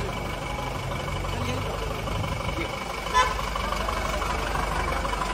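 A small truck's engine running steadily at low speed as it moves along, with a brief shouted call about three seconds in.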